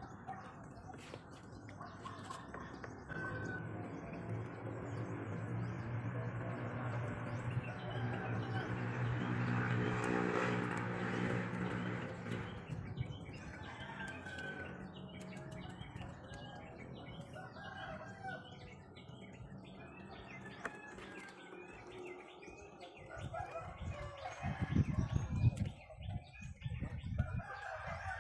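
Roosters crowing and small birds chirping, while a trowel scrapes and smooths wet cement mortar, with a few loud knocks near the end. A low steady hum swells up and fades away over the first half.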